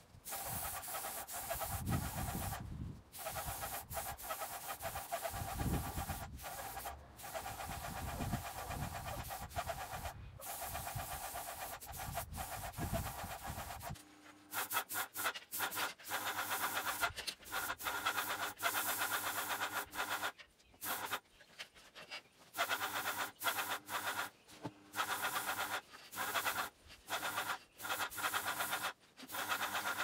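Graco airless paint sprayer at work, a hiss with a steady hum that cuts in and out many times as the spray gun is triggered on and off. A low rumble underlies the first half and stops about halfway through.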